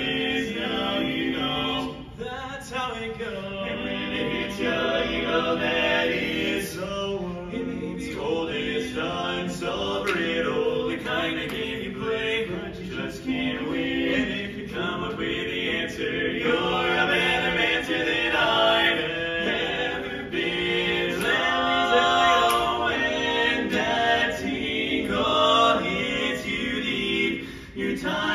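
Barbershop quartet of four male voices singing a cappella in close harmony, holding chords phrase by phrase.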